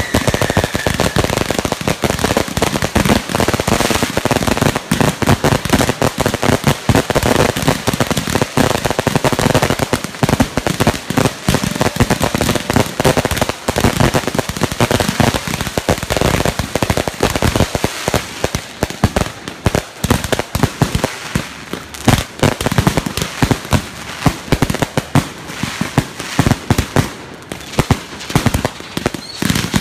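Ground-lit fireworks firing continuously: a dense stream of rapid crackling and popping, with a whistle trailing off at the very start. The pops thin out and come more unevenly in the second half.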